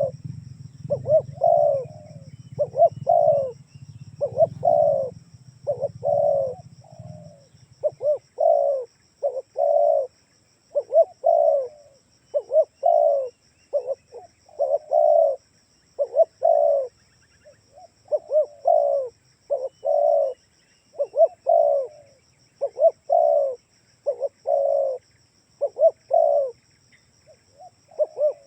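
Spotted dove (tekukur) cooing, its short phrases repeated about once a second: a calling recording used as a lure to draw other doves into answering. A low hum sounds under the first seven seconds or so.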